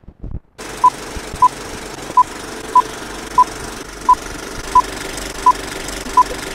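Film countdown leader sound effect: nine short beeps at one steady pitch, about every two-thirds of a second, over a steady film-style hiss and crackle that comes in about half a second in after a few clicks.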